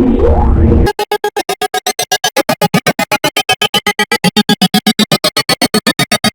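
The Minions' drawn-out 'AAAAAAAA' scream run through an electronic stutter effect, chopped on and off about eight times a second so that it sounds like a synthesizer. In the first second, the end of a louder version with sweeping pitch cuts off abruptly.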